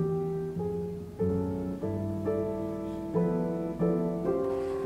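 Instrumental background music led by piano, a calm melody of single struck notes at an unhurried, uneven pace.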